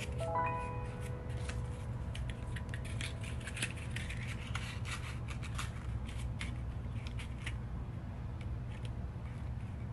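Pleated origami paper rustling and crackling as it is folded and pressed by hand, in many small crisp crackles that are thickest in the first half. A steady low hum runs underneath.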